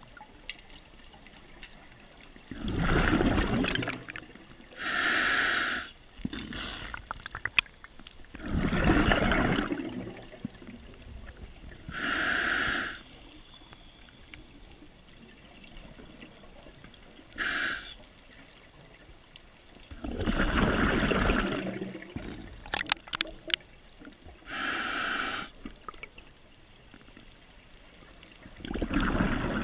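Scuba diver breathing through a regulator underwater: slow, regular breaths, each a short hiss of inhalation through the regulator followed by a longer gurgling rush of exhaled bubbles, about one breath every eight seconds.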